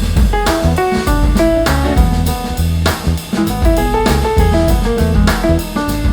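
Instrumental jazzy music with a steady beat: drum kit, a bass line and short plucked melody notes.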